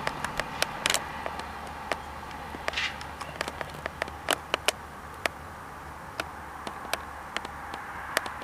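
SNCF X 72500 diesel railcar's engine running as it draws away along the track: a low steady rumble that fades a little, with scattered sharp clicks over it.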